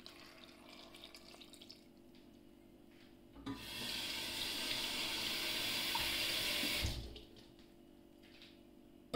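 Water trickles softly for the first second or two, then a tap runs for about three seconds in a steady hiss that starts and stops sharply.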